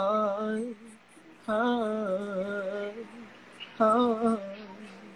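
Wordless singing: a voice holds three long notes in a row, each with a slight waver.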